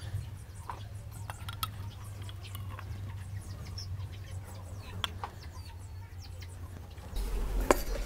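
Light clicks and taps of the plastic oil-bath air-filter bowl, oil glass and mesh filter element being handled, over a steady low hum, with faint bird chirps in the background.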